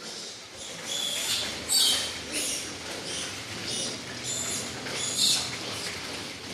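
Weaned piglets squealing, a string of short high-pitched squeals.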